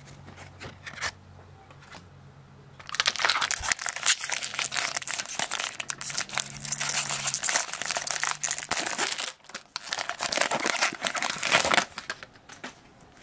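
Foil wrapper of a Topps baseball card pack crinkling and tearing as it is ripped open by hand, starting about three seconds in and running in two stretches with a short break about two-thirds of the way through.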